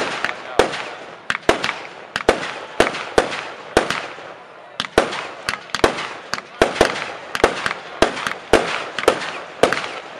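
A Lonestar 100-shot, 20 mm fireworks cake firing in rapid succession: sharp reports come about two to three a second, irregularly spaced, with a rushing hiss between them.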